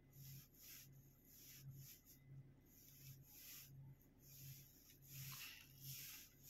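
Faint soft rubbing of a fingertip tapping and sliding on a tablet touchscreen, several short scuffs spread through, over a faint low hum.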